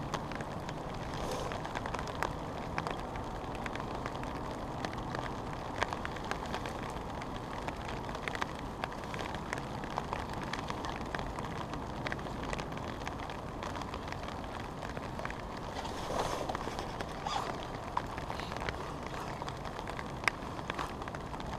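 Steady rain falling on a fishing umbrella overhead: a dense patter of fine drop ticks over a continuous low hiss.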